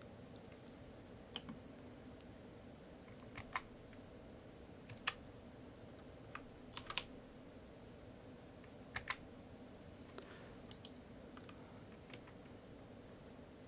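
Redragon K580 VATA mechanical keyboard with brown switches, keys pressed one at a time or in quick pairs with pauses of a second or more between them.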